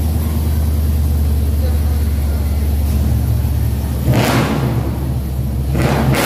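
Dodge Durango's V8 engine running at a steady idle, then revved twice, about four seconds in and again near the end, the exhaust getting louder with each rev.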